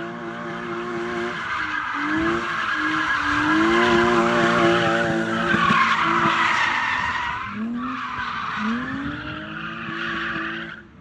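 A drifting car's tyres screeching loudly while the engine revs. The engine note climbs sharply several times, and everything cuts off suddenly at the end.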